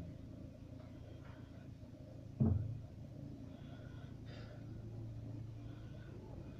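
A car heard from inside: a short knock at the start, a louder thump about two and a half seconds in, then the engine running with a steady low hum as the car moves off.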